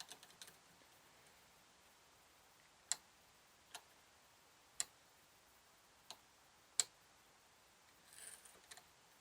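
About half a dozen sharp, scattered clicks, irregularly spaced, of a tool working a split pin out of a dynamo spindle. There is a faint rustle near the end.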